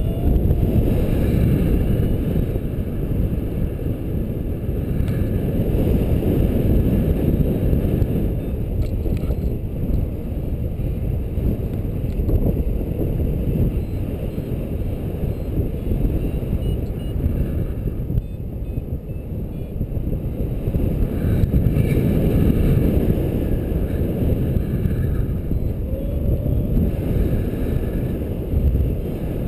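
Wind rushing over the camera microphone of a paraglider in flight: a steady, low buffeting that swells and eases.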